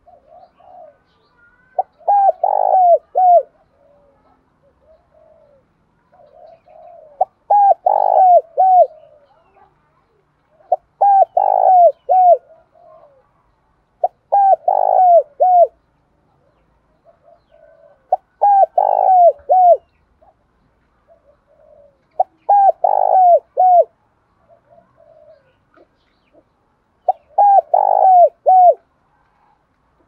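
Spotted dove singing its cooing song: seven phrases, about one every four seconds, each a soft lead-in followed by three or four clear, short falling coos.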